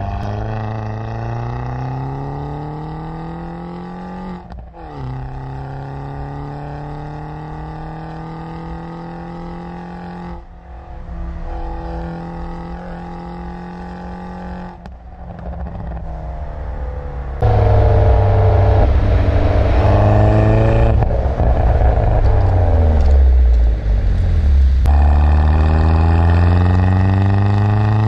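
John Cooper Works Mini's four-cylinder engine and exhaust under hard acceleration, the pitch climbing in each gear and dropping back at gear changes about every five seconds. About two-thirds through it gets much louder, falls in pitch as the car slows, then pulls up through the revs again near the end.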